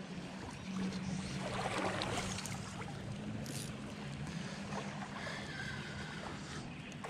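Shallow stream water rushing and sloshing around a wading angler, louder for a moment about two seconds in, over a steady low hum.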